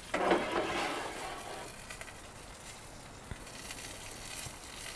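A NY strip steak sizzling in a hot Lodge cast iron skillet: a steady hiss, louder in the first second or so and brighter again near the end.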